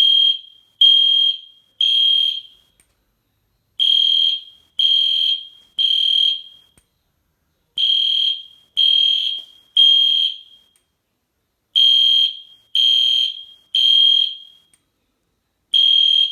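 EST Genesis horn strobe sounding a loud, high electronic tone in the temporal-three evacuation pattern: three beeps about a second apart, then a short pause, repeating four times, with a fifth group starting near the end.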